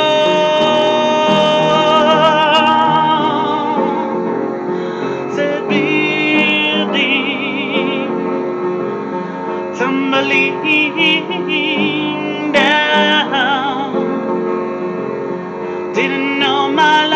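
A woman sings wordless held notes and short runs with heavy vibrato over a steady piano accompaniment. A long note opens the passage, followed by several shorter phrases.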